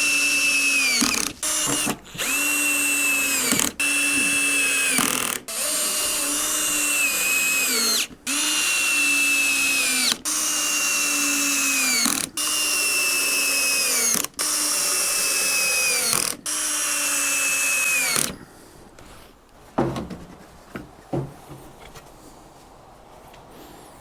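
Cordless drill driving screws into lumber in about ten runs of a couple of seconds each, the motor pitch sagging at the end of each run as the screw bites in and seats. The drilling stops about 18 seconds in, and a couple of light knocks follow.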